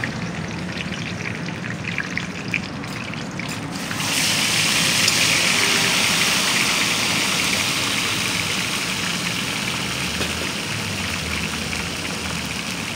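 Fish deep-frying in hot oil in a large wok: a loud, dense sizzle that starts suddenly about four seconds in and slowly eases off. Before it, a quieter hiss with a few light clicks.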